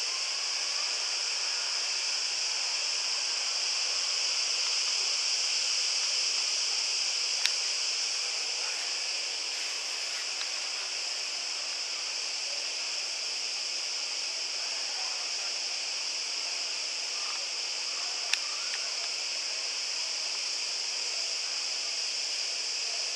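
Steady hiss, with two sharp clicks about seven and eighteen seconds in.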